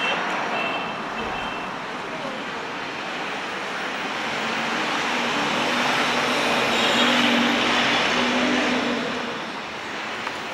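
City street traffic, with a vehicle passing close by: its tyre and engine noise swells to a peak about seven seconds in, then fades away.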